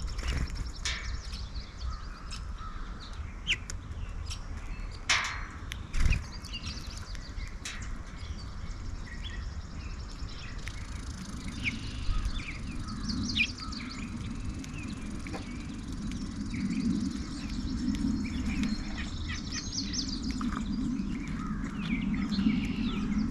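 Songbirds chirping and calling with many short high notes, broken by a few sharp clicks. A low steady hum comes in about halfway through.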